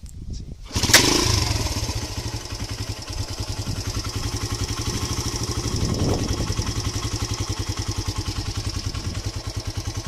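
1973 Honda CL100's single-cylinder four-stroke engine starting about a second in, then idling with a fast, even pulse. The engine is only briefly warmed up.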